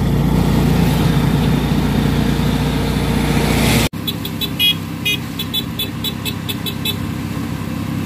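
Engine of a small passenger vehicle running steadily, heard from inside the cabin while driving. The sound cuts off abruptly about four seconds in and resumes quieter, with a quick run of about ten short, high-pitched beeps over the next few seconds.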